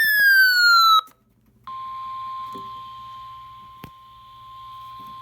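A loud falling electronic beep for about a second, then after a brief gap a steady single-pitch alert tone of about 1050 Hz, the NOAA Weather Radio warning alarm tone, held over faint radio hiss. A sharp click comes midway, and another loud short falling beep cuts the tone off at the end.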